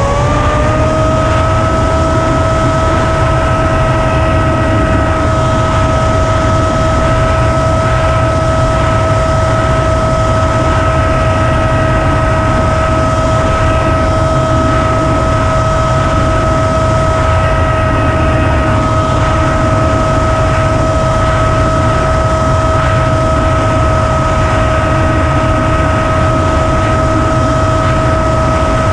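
An FPV flying wing's electric motor and propeller whining at a steady pitch, heard from the wing's onboard camera, with heavy wind rush over the microphone. The pitch rises slightly in the first second and then holds.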